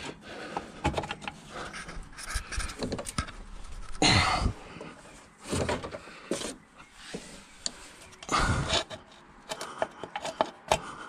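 Scattered clicks, knocks and scrapes of a replacement engine mounting being worked into its location under a car, with two hard breaths about four and eight and a half seconds in.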